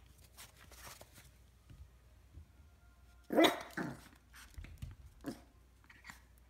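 Bichon frise puppy barking: two barks close together a little past halfway, then a quieter one.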